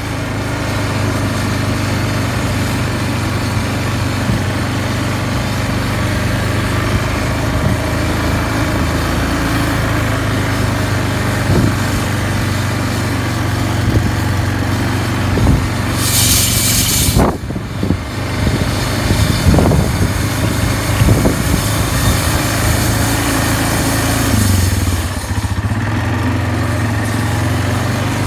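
Quad bike engine running steadily under load as it tows a chain harrow over loose soil. A few sharp knocks come through in the middle, with a brief rush of hiss about sixteen seconds in.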